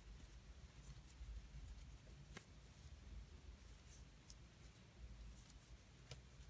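Near silence with faint scratchy rustling from crocheting: a fine metal crochet hook drawing yarn through stitches, with a few light ticks, the clearest about two and a half seconds in and near the end, over a low room hum.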